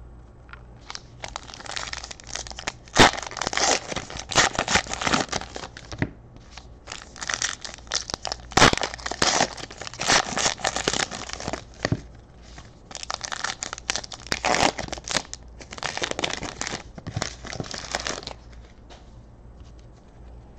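Wrapper of a trading-card pack being torn open and crumpled, crinkling in three long stretches with sharp crackles. It goes quiet about three seconds before the end.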